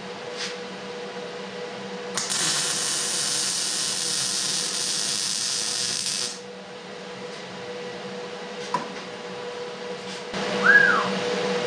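A welder runs a single bead on the steel plate of a small air jack, about four seconds of steady harsh hiss that starts and stops sharply, over a steady low hum. It is the repair of a weld that had broken off cold. A short squeak that rises and falls comes near the end.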